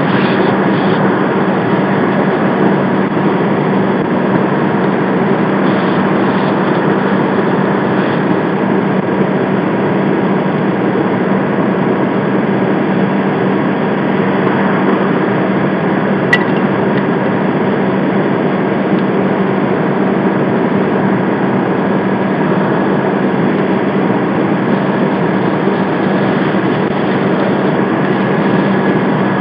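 Fire apparatus engine running steadily: a loud, continuous mechanical drone with a constant low hum, unchanging throughout, with one small click about sixteen seconds in.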